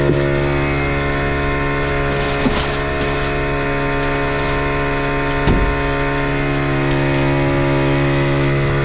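A steady machine hum at one unchanging pitch, with a couple of light knocks about two and a half and five and a half seconds in.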